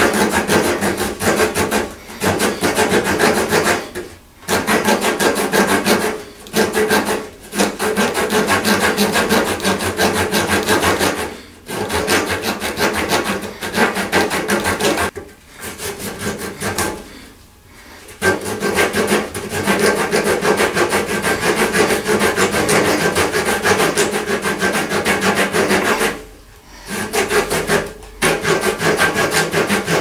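Leatherman Blast multi-tool's folding saw blade cutting by hand through a small block of scrap wood, in quick back-and-forth strokes with short pauses every few seconds.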